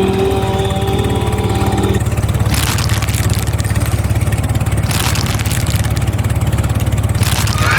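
An engine running steadily with a fast low pulse. For about the first two seconds it is joined by a held, chord-like horn tone. Short bursts of hiss come about every two and a half seconds.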